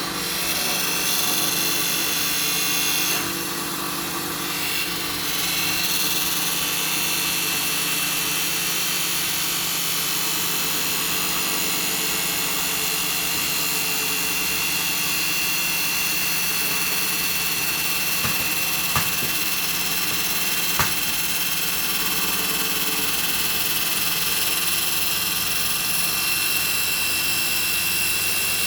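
Homemade CNC wood lathe running with a steady motor whine. Two sharp clicks come about two seconds apart, some two-thirds of the way through.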